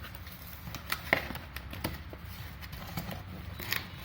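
Packaging of a cable jointing kit being handled and opened: scattered clicks, knocks and rustles over a low hum.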